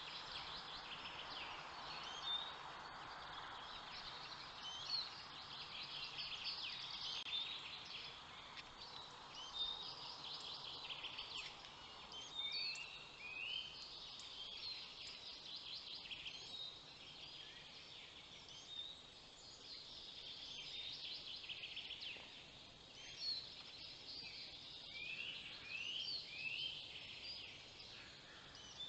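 Several small forest songbirds singing and calling, with many short high chirps and trills overlapping throughout. A faint steady hiss under them fades away over the first several seconds.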